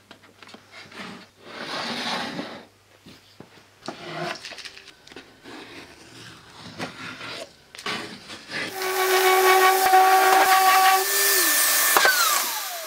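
Small handling knocks and rustles of a plywood box being pressed and taped. Then, about nine seconds in, an electric random orbital sander runs with a steady whine and hiss, and is switched off near the end, its whine falling as it spins down.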